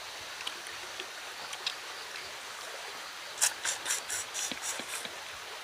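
Steady rushing background noise, and about three and a half seconds in, a quick run of seven or eight crisp crinkles and smacks over less than two seconds as fish is picked from a banana-leaf wrap and eaten by hand.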